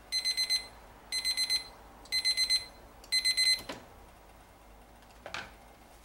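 Polder digital cooking timer sounding its alarm: four bursts of rapid high-pitched beeps, about one burst a second. The beeps signal that the 20-minute simmer time for the rice is up.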